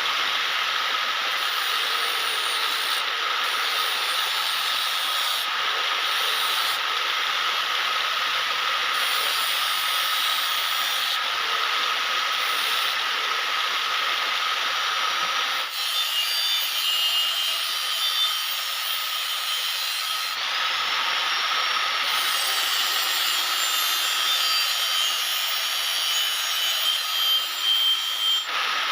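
Continuous abrasive grinding of a steel blade, with a steady whine running under it. The texture changes abruptly about two-thirds of the way through, after which higher ringing tones come and go over the grinding.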